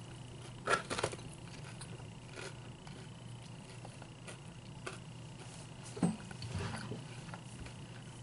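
Someone chewing a bite of breaded fried chicken finger, with a few soft crunches and mouth clicks now and then, the loudest about six seconds in, over a steady low hum.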